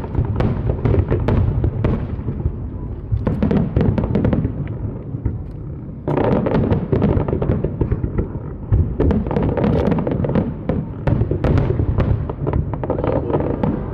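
Aerial fireworks show: a continuous run of deep booming bursts mixed with many sharp crackles and pops, suddenly getting louder and denser about six seconds in.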